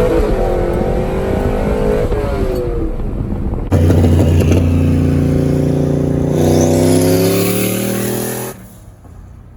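Car engine and exhaust revving, the pitch falling and climbing again, in abrupt cut-together segments: a sudden louder start about four seconds in, a change a few seconds later, then an abrupt drop to a much quieter background near the end.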